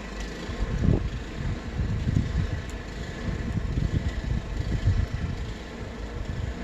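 Wind gusting against the microphone during a snowstorm: irregular low rumbling buffets over a steady hiss, strongest about a second in and again around two and five seconds in.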